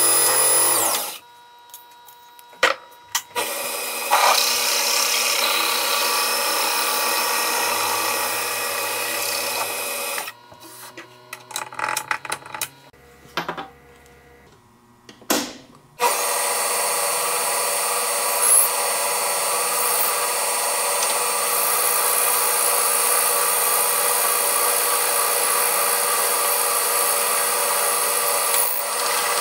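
Metal lathe running, its cutting tool turning and boring aluminum stock: a steady machine whine with a hiss of cutting. It drops out twice, briefly about a second in and for several seconds in the middle, where only scattered clicks and knocks are heard.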